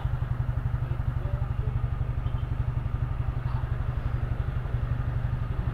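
Honda Click scooter's single-cylinder engine idling steadily, a fast, even low pulse.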